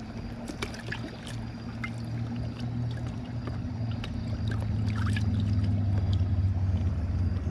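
A steady low engine drone that grows gradually louder, with scattered light clicks and taps of handling over it.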